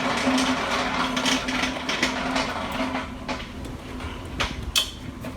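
Machinery clattering and rattling over a steady low hum, with sharp clicks and knocks; the clatter is loudest for the first three seconds, then eases off, and a few separate knocks come near the end.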